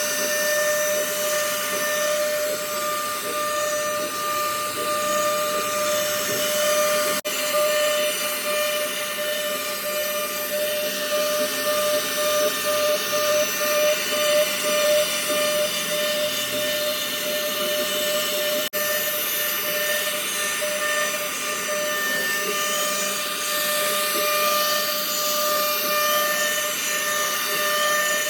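CNC router spindle cutting wood: a steady high whine with a rough cutting hiss, breaking off for an instant twice.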